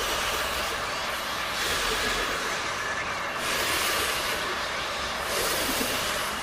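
A dense, steady rushing rumble that cuts in abruptly, its hiss swelling and easing every second or two.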